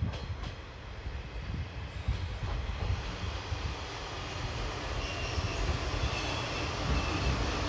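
Mizushima Rinkai Railway KiHa 37 diesel railcar approaching along the platform, its rumble growing slowly louder as it nears. A faint high squeal sets in from about four to five seconds in.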